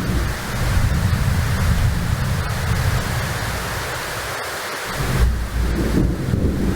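Hurricane wind and rain: a steady rushing noise with heavy low buffeting of wind on the microphone, which drops away briefly just past the middle and comes back about five seconds in.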